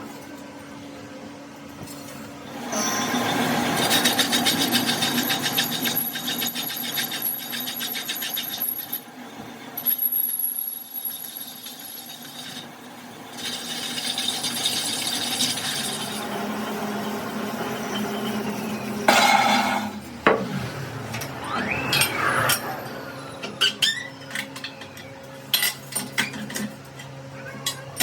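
A power tool grinding on steel in two long spells, with a high whine between them. A loud burst follows, then scattered metal knocks and clinks.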